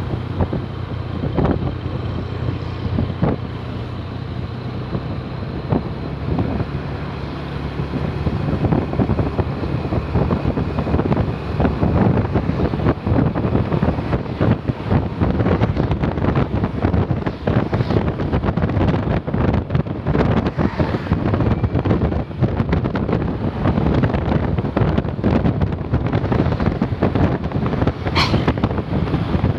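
A bus engine runs with a low hum that grows louder and rougher about eight seconds in. Heavy wind noise buffets the microphone over it.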